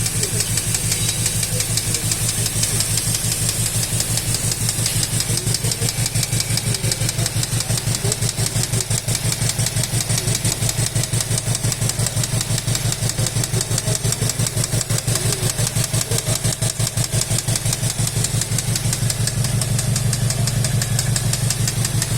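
Volkswagen Golf 7 R's 2.0 TSI four-cylinder engine running steadily with a rapid, regular clacking: the engine knock under diagnosis.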